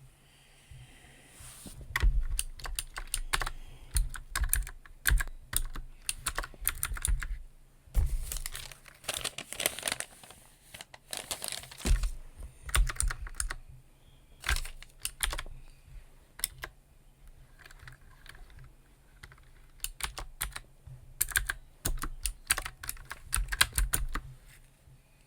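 Typing on a computer keyboard in bursts of rapid key clicks, with short pauses between runs.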